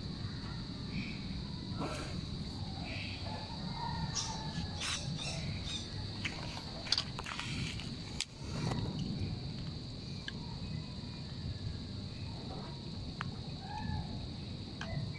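Outdoor ambience: birds chirping now and then over a steady high-pitched hum, with a few short clicks in the middle.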